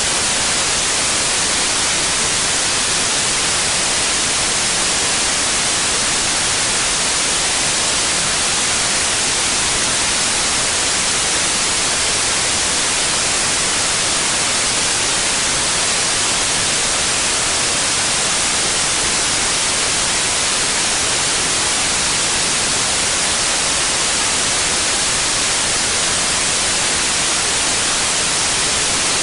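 Steady, unchanging white noise: an even hiss across the whole range, with no events or variation.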